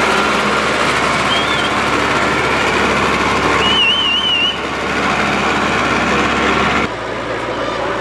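Tractor engines running, with a short warbling high whistle about four seconds in; the sound drops and changes abruptly near the end.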